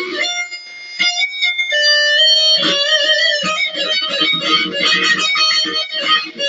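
Electric guitar solo played fast in a shredding style, dense runs of notes; early on it eases into a few held, ringing notes stepping through pitches, then the fast runs start again about two and a half seconds in.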